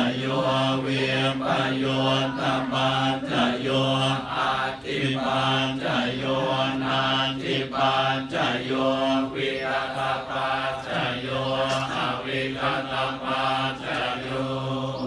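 Theravada Buddhist monks chanting Pali verses in unison in a low, steady monotone, in short phrases with brief breaks, stopping at the very end.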